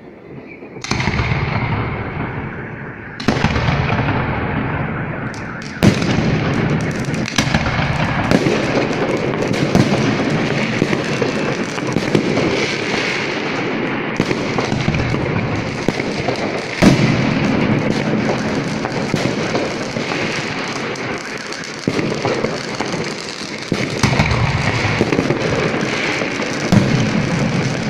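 New Year's fireworks going off: a run of sharp bangs in quick succession, starting about a second in, over a continuous crackle and rumble of bursting shells.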